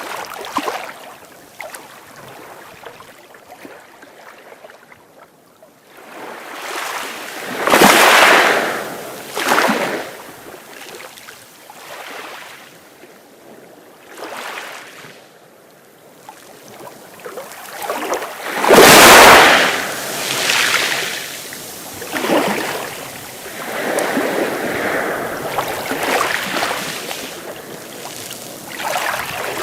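Sea waves breaking in uneven surges, with quieter lulls between them. The loudest wave crashes about two-thirds of the way through, and smaller washes follow it.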